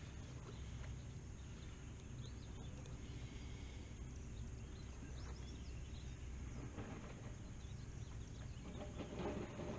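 Quiet outdoor lake ambience: a steady low rumble with a few faint bird chirps, and a brief rustle of handling about nine seconds in.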